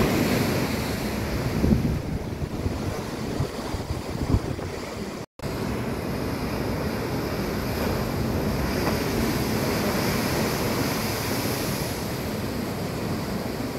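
Heavy sea swell breaking and surging against a sea wall and slipway, a continuous rushing surf with louder surges in the first couple of seconds and again around four seconds in, and wind buffeting the microphone. The sound cuts out for an instant about five seconds in.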